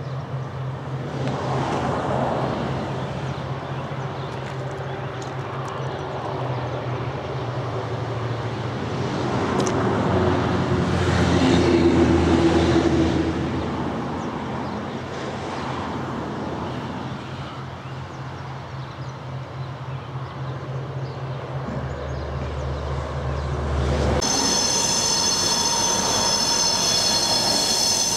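Freight train of milk tank wagons hauled by diesel locomotives rolling past, with a steady low engine drone, the rolling noise swelling to its loudest about 12 seconds in. After a sudden change about 24 seconds in, a pair of KiwiRail DC-class diesel locomotives runs light over a level crossing with a steady high-pitched wheel squeal.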